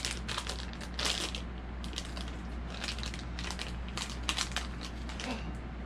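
Shiny pink plastic blind bag crinkling and crackling in irregular bunches as it is torn open by hand.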